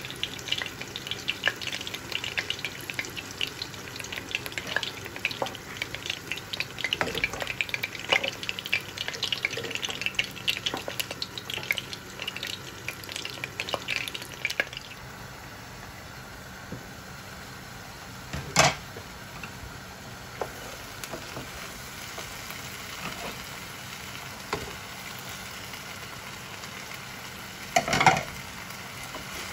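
Jackfruit-seed curry frying and sizzling in a pot while it is stirred: busy crackling for about the first fifteen seconds, then a steadier, quieter sizzle. A sharp knock comes about eighteen seconds in, and a louder clatter comes near the end.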